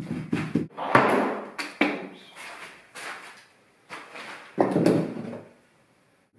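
Knocks and clatter of wooden strips and hand clamps being handled and fitted on a plywood boat hull: a run of short knocks, loudest about a second in, with another cluster near five seconds.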